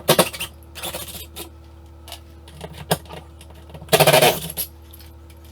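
Small metal pieces clattering and jingling in two bursts, one near the start and a louder one about four seconds in, with a few single clinks between, over a steady low hum.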